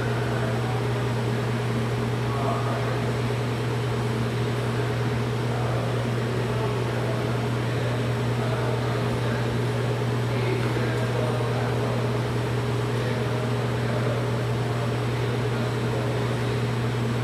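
Steady mechanical hum of machinery running: a constant low drone with fainter higher tones over an even hiss, unchanging throughout.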